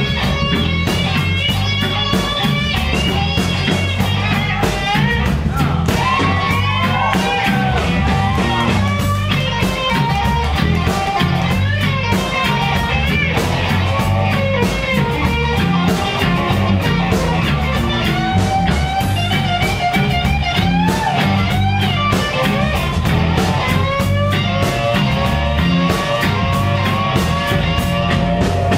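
Live blues band playing an instrumental break: an electric lead guitar solos with bent notes over bass and drums keeping a steady beat.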